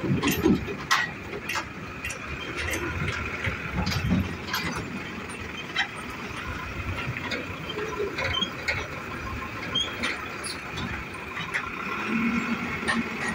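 Goods trucks crossing a level crossing at low speed, their diesel engines running, with scattered clanks and rattles as the truck bodies jolt over the rails.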